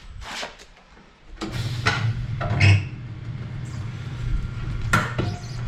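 Industrial tire changer at work in a shop: a steady motor hum starts about a second and a half in, with short bursts of hissing and rattling over it and a sharp knock near the end.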